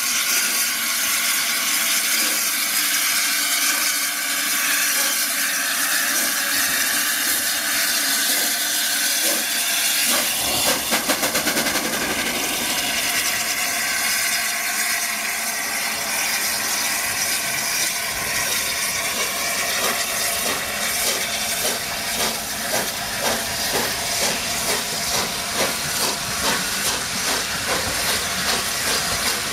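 Peppercorn Class A1 three-cylinder steam locomotive 60163 Tornado starting away with a train. Steam hisses steadily, then about ten seconds in a short flurry of very fast exhaust beats comes as the driving wheels slip. From about twenty seconds on, regular exhaust beats come about one and a half a second as it pulls away.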